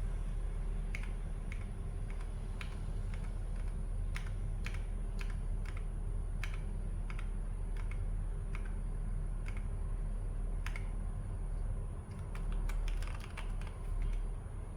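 Keychron K8 Pro mechanical keyboard keys pressed one at a time at an irregular pace, separate clicks about one or two a second, over a steady low hum.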